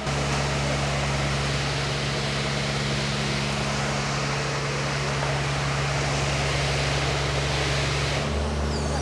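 Engine of heavy construction machinery running steadily under an even hiss. A little after 8 seconds in, the hiss drops away and the engine note shifts.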